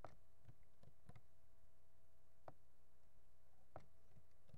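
Faint steady electrical hum with a thin whine, with about eight scattered soft clicks of a computer mouse.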